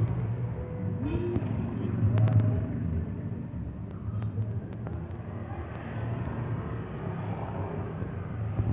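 Steady outdoor background rumble with a haze of noise and a few faint, brief clicks.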